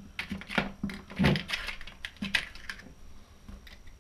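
Irregular small clicks and rattles of hard plastic and metal parts being handled: Dremel accessories taken from a plastic case and the chuck being fitted onto the nose of a Dremel 3000 rotary tool, which is not running.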